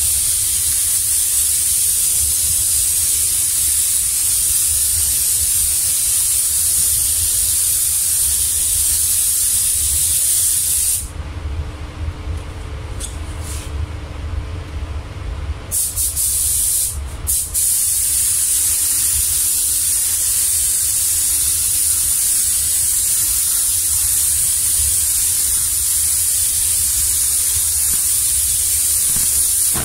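Gravity-feed spray gun hissing steadily as it sprays clear coat onto a car body, over a steady low rumble. About a third of the way in the spraying stops for roughly five seconds, broken by a couple of short blasts, then resumes.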